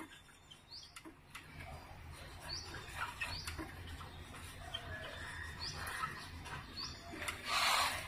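Faint strokes of a marker scratching on a whiteboard as words are written, with a few short, high chirps scattered through, and a louder rustle near the end.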